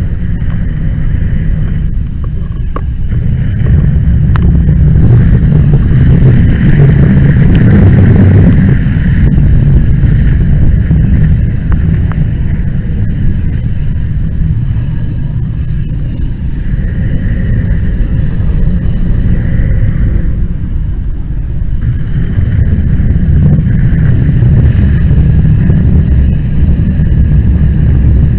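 Loud, steady rumble of large fires burning on mock rail cars while hose streams spray onto them, picked up close by a helmet-mounted camera; it swells about four seconds in and again near the end.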